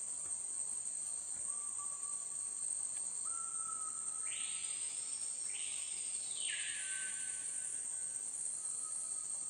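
Rainforest insect chorus: a steady high-pitched insect drone, with faint sustained whistling notes beneath it. Around the middle a louder hissing buzz swells up twice in quick succession and fades after about two seconds.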